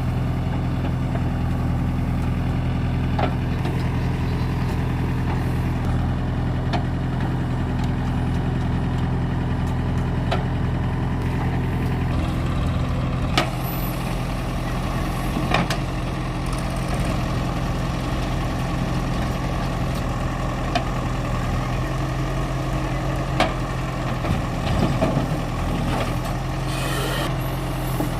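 Diesel engine of a JCB 3DX Eco backhoe loader running steadily while it works, with several short, sharp knocks scattered throughout. The engine note changes about halfway through.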